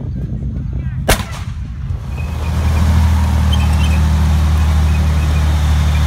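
Sherman tank engine running, with a single sharp bang about a second in. Then an M60 Patton tank drives by, its V12 diesel engine making a louder, steady low drone.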